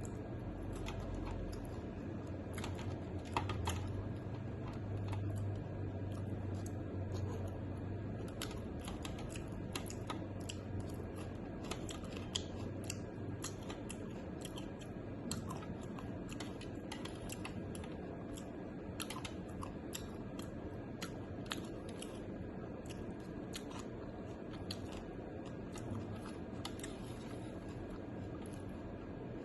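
A person eating bok mi, a pounded noodle salad: chewing with many small sharp clicks and crunches, scattered irregularly throughout.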